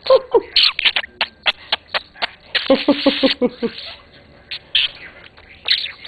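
Budgerigar chattering: a quick jumble of chirps, clicks and scratchy warbles, with a fast run of about six short pitched notes around three seconds in.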